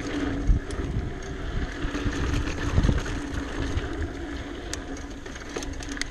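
Giant Talon 27.5 mountain bike rolling along a dirt singletrack: tyre noise and a steady hum, with rattles and sharp knocks as the bike goes over bumps, and wind buffeting the microphone.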